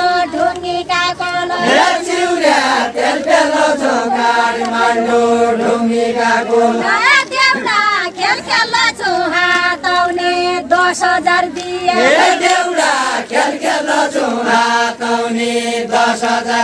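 A group of voices singing a Deuda folk song together in long drawn-out phrases, each line opening with a rising glide and settling onto a long held lower note, about every five seconds.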